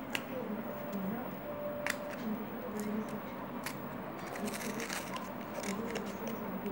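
Wrapper of an egg-shaped lip balm being peeled and torn off by hand: scattered sharp clicks and crackles, thickening into a run of crinkling about four to six seconds in.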